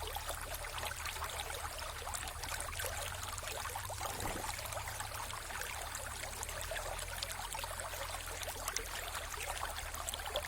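Mountain river flowing over rocks: a steady rush of water full of small splashes and burbles, with a low rumble beneath.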